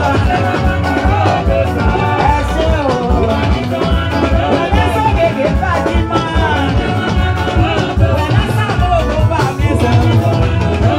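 Live band music with a steady, bass-heavy beat and a woman singing lead into a microphone.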